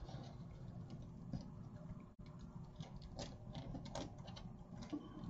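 Stiff deco mesh rustling and crackling as it is folded and pressed flat by hand on a cutting mat, a run of small uneven scratches.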